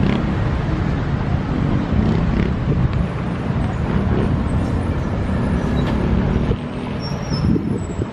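Steady rumble of road traffic in the open air, with heavy vehicles among it. The low rumble eases off about six and a half seconds in.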